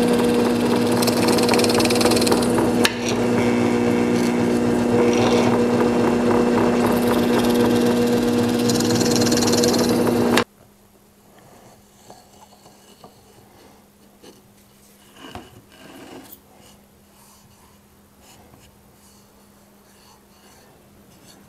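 Drill press running steadily with a humming motor tone, its bit cutting screw holes into a small wooden brace in several short passes. The machine sound cuts off abruptly about ten seconds in, leaving only faint knocks and handling sounds.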